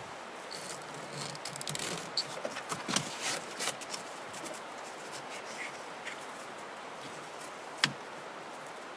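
Hands threading and working a bungee cord through the plastic seat and backband fittings of a whitewater kayak: soft rustling and small plastic clicks, busiest in the first few seconds, with one sharp click near the end, over a steady background hiss.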